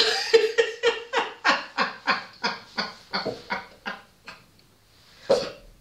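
A woman laughing hard in a long run of quick breathy pulses, about five a second, fading away after about four seconds, then one sharp gasp for breath near the end.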